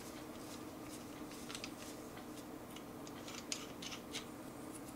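Faint, scattered clicks and light rubbing of hard plastic as a GoPro mount adapter is screwed by hand onto a small tripod's ball-head stud.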